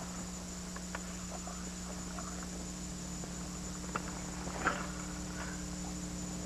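Quiet steady electrical hum with a few faint clicks and a soft knock about four to five seconds in, from a spinning rod and reel being handled during a cast.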